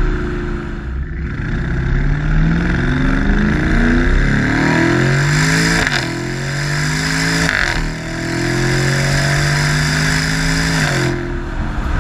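BMW 550i V8 through a Meisterschaft aftermarket exhaust, heard at the tailpipe under hard acceleration. The note climbs, drops sharply at upshifts about six and seven and a half seconds in, climbs again, and falls away near the end.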